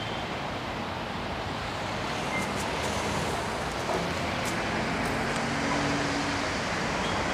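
Steady road traffic noise, an even rumble and hiss of passing vehicles with no single one standing out.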